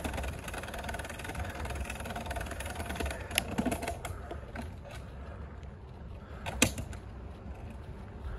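Wind rushing over the microphone and road rumble while cycling, with a light clicking rattle and a few sharp knocks, the loudest about two-thirds of the way through.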